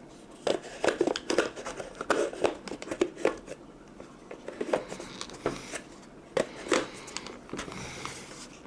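Hard plastic parts of a handheld car vacuum being handled and fitted together, with the filter going on: a run of irregular clicks, taps and knocks.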